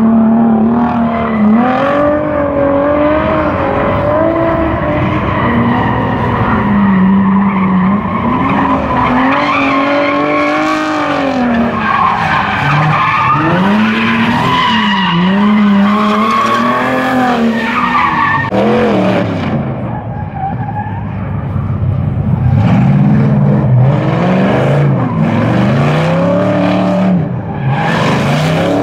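Drift cars sliding sideways: the engine revs up and down again and again over continuous tyre squeal and skidding. About two-thirds of the way through, one car's sound dies away and another car's revving engine and tyres take over.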